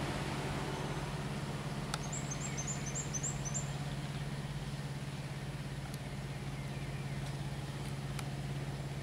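A steady low machine hum, with a quick run of about ten high, thin bird chirps roughly two seconds in.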